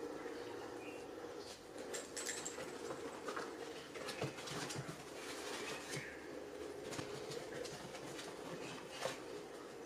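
Toy poodle puppies scampering about the pen: light, scattered scuffs and taps of small paws on the floor mat and foam steps, over a steady low hum.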